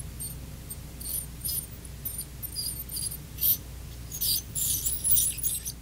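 Satelec piezoelectric ultrasonic scaler with a P2L perio tip, run on low power, chirping and squeaking in short, irregular high-pitched bursts as the tip works against the plastic teeth of a typodont. This squeal comes from the plastic model and does not occur on real teeth.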